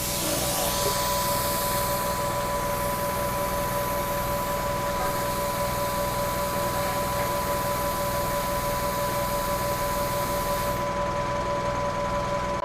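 A machine running with a steady hiss and two steady whining tones over a low engine rumble. The hiss cuts off about two seconds before the end while the tones and rumble carry on.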